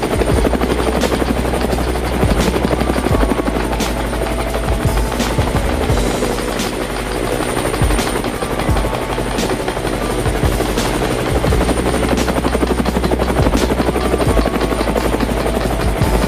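Steady helicopter rotor sound, a continuous fast chopping whir, with music underneath.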